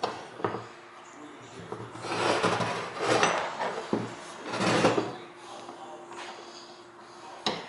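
Drill press parts scraping and rubbing as they are forced into place, in three rough pushes, then a faint steady hum and a sharp click near the end.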